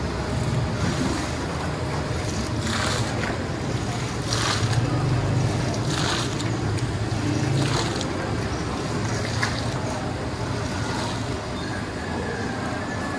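Chickpea stew sloshing and splashing in a large metal cooking pot as a long ladle stirs it and scoops it out, with a splash about every one and a half seconds over a steady rushing background.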